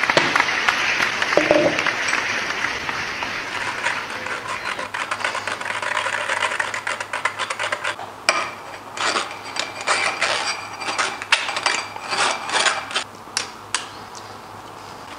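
Almond milk draining through a metal mesh strainer with a steady rush, then a metal spoon scraping and pressing the wet almond pulp against the mesh. The scraping comes as irregular rasping strokes in the second half.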